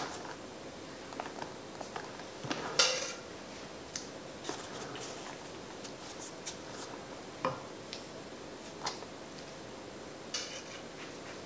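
Kitchen utensils and dishes handled at a counter: scattered light clinks and taps, with a louder, longer scrape about three seconds in and another near the end.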